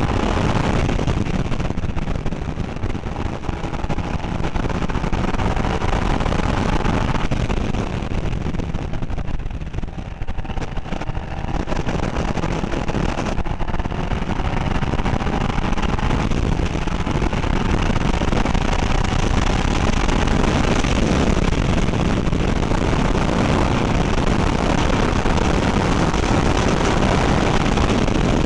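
Seat Leon Copa race car at speed, heard from a camera inside the car: a loud, steady rumble of road and wind noise, over which the engine's note climbs slowly in pitch and then drops back several times.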